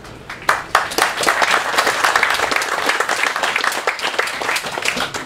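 Crowd applauding. It starts about half a second in and dies away near the end.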